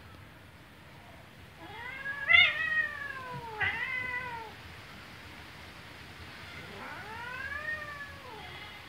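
Cat yowling in distress as dogs attack it: three drawn-out calls that rise and fall in pitch. The first, about two seconds in, is the loudest.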